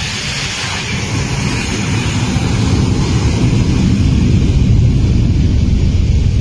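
Jet airliner noise from a Boeing 757 freighter on the runway: a deep rumble that swells louder from about two seconds in, under a steady hiss.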